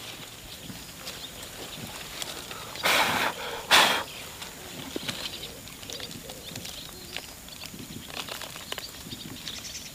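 Hands rustling through grass and crumbling soil while pulling a small tree's root ball out of the ground, with light crackles throughout and two louder rustling rushes a little under a second apart about three seconds in.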